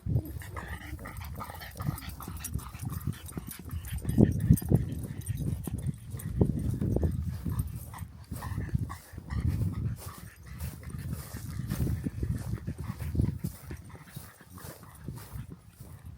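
A dog's sounds, over uneven low rumbling.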